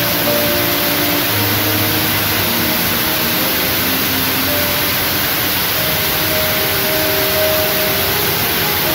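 Steady, loud hiss, with soft background music notes faintly beneath it.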